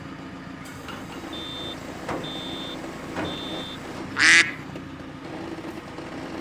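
Heavy equipment's warning alarm beeps three times, about a second apart, over a diesel engine running steadily. A little after the beeps comes a short, loud burst of noise, the loudest sound here.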